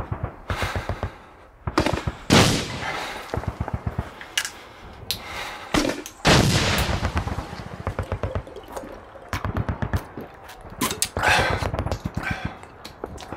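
Bursts of rapid automatic gunfire, with three heavier blasts that ring on about two, six and eleven seconds in: a combat soundscape.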